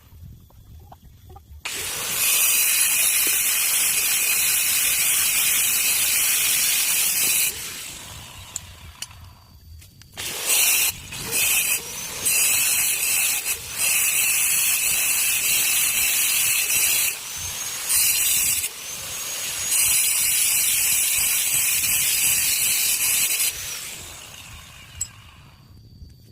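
A power tool working on the material of a stone mortar and pestle, run in several stretches of a few seconds each with short stops between. It gives a loud, high hissing noise while cutting.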